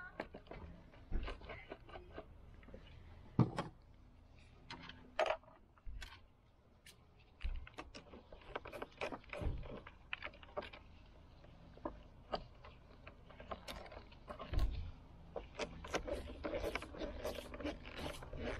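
Scattered clicks, knocks and short scrapes of hand work in a car engine bay: plastic fuse-box and battery-box parts being pressed into place and a wrench clinking on metal. There is one sharper knock a few seconds in, and the clicking grows busier near the end.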